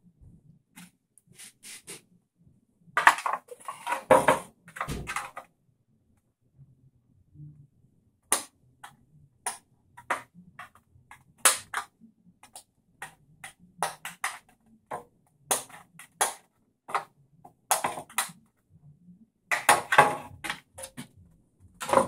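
Scissors cutting a clear polycarbonate RC car body shell: short sharp snips, roughly one a second, with louder crackling of the flexing plastic about three seconds in and again near the end.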